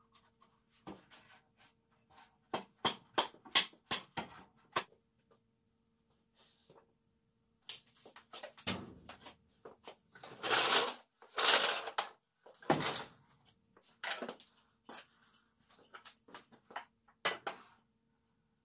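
Scattered knocks and clattering in several bunches, the loudest and longest clatter a little past the middle, over a faint steady hum.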